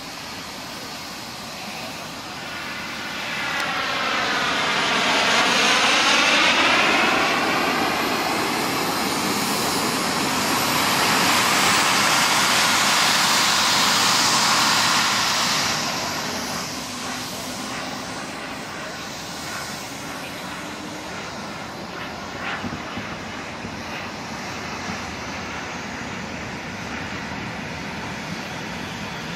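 Gas-turbine engine of a giant-scale radio-controlled English Electric Lightning model jet flying past: a rushing jet sound that swells and sweeps in pitch as it passes close, stays loud through the middle, then fades back to a distant hum after about sixteen seconds.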